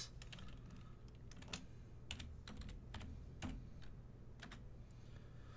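Faint, irregular keystrokes typed on a computer keyboard, over a low steady hum.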